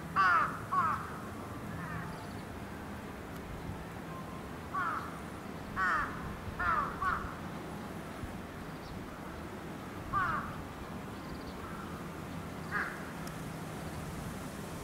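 A crow cawing repeatedly: short, harsh caws in groups of one to three with pauses between, about nine in all.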